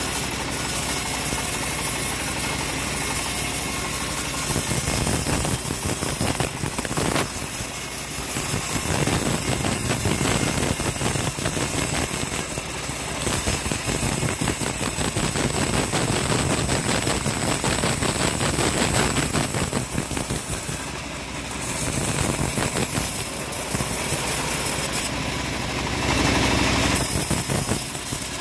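Homemade bandsaw mill running, its blade ripping a long baulk of hard jowar wood: a loud, steady mechanical rasp with the machine's drive running underneath. The level dips briefly about two-thirds through.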